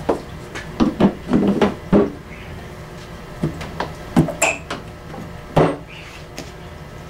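The engine cowling of a Yamaha Enduro 40 outboard being lowered onto the motor and seated: a series of knocks and clunks, several in the first two seconds and a few single ones later.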